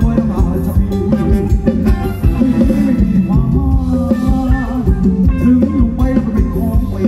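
Thai ramwong dance music from a live band, with drum kit and guitar over a steady beat.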